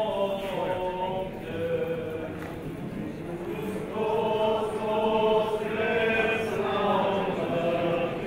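Unaccompanied Orthodox church chanting by several voices, a slow held melody that grows louder about four seconds in.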